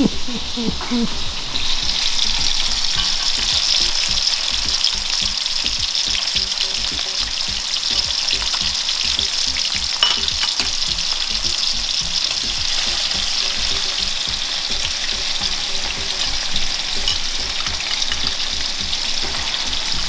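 Chunks of goat meat deep-frying in hot oil in a wok: a steady, loud sizzle with a few sharp clicks, the clearest about halfway through.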